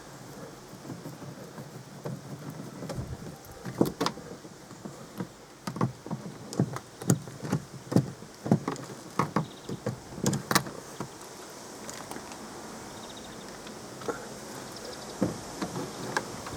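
Screwdrivers and hands working at a car's inside door trim panel, undoing its screws and clips: a run of sharp clicks, knocks and small rattles, thickest in the middle. A quieter stretch follows, then a few more clicks near the end.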